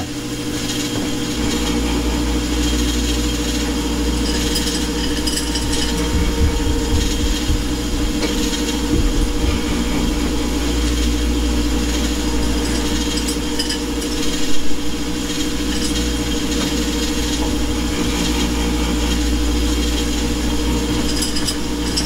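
Harman pellet stove running its blower motors, a steady mechanical hum and rattle as the stove is called to start up, with one short knock about two thirds of the way through.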